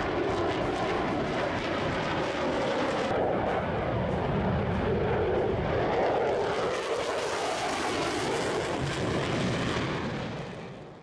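Jet noise from a Chengdu J-20 twin-engine stealth fighter flying overhead: a steady rushing engine sound that fades out near the end.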